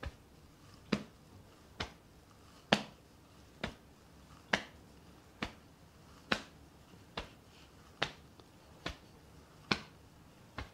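Open hands slapping against the body in a steady rhythm, a little faster than one slap a second and alternately louder and softer, as the torso twists side to side: one hand knocks the abdomen while the other knocks the lower back.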